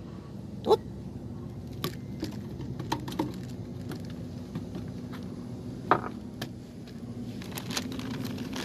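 A hooked fish splashing at the water's surface beside a wooden boat: two sharp plops about five seconds apart, the first near the start, with smaller splashes and clicks between them. A steady low motor hum runs underneath.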